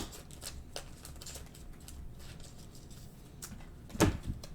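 Trading cards being handled and flipped through, making soft scattered clicks and slides, with one louder knock about four seconds in.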